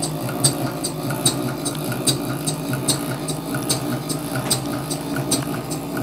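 Scale-model duplex Corliss tandem compound steam engine running, ticking evenly about two to three times a second over a steady low hum.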